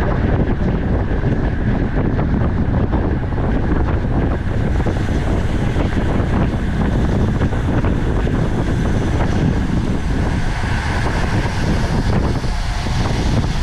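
Wind rushing over the microphone of a camera riding on a racing road bicycle at speed: a loud, steady rush with a heavy low rumble.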